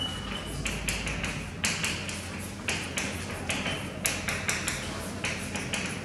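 Chalk tapping and scratching on a blackboard as equation terms are written: an irregular run of sharp taps with short scratchy strokes between them, and a brief high squeak of the chalk right at the start.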